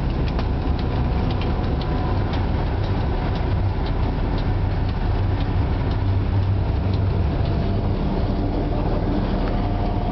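Cab noise inside a 2M62 diesel locomotive under way: the steady low drone of its two-stroke diesel, with scattered clicks of the wheels over rail joints and points. The clicks come often in the first half and thin out later.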